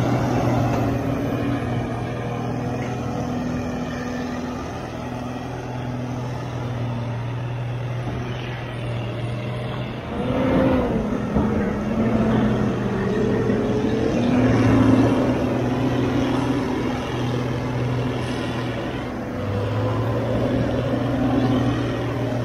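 Heavy diesel engines of a John Deere 550K crawler dozer and a motor scraper working under load as the dozer push-assists the scraper stuck in mud. The engine note is steady but shifts in pitch several times around the middle.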